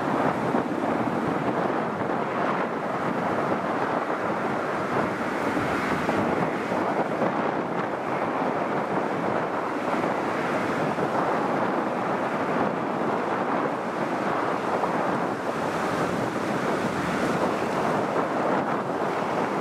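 Lockheed C-5 Galaxy's four turbofan engines at takeoff thrust: a steady, even rushing noise as the aircraft lifts off and climbs away.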